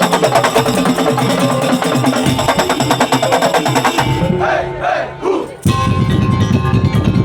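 A Madurese daul (tongtong) percussion ensemble playing: dense, fast strikes on drums and wooden slit drums under a sustained melodic line. About four seconds in the rhythm breaks off briefly while voices call out, then heavy low drumming starts again.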